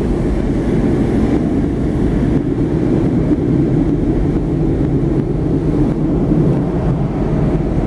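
Steady low rumble of a passenger train in motion, heard from on board as it runs along the rails.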